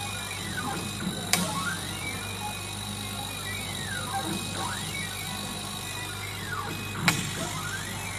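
Motors of a 180 W CNC laser cutting machine whining as the head travels back and forth over acrylic. Each pass rises in pitch, holds and falls, three times, over a steady hum. A sharp click sounds about a second in and again near the end, each as a pass begins.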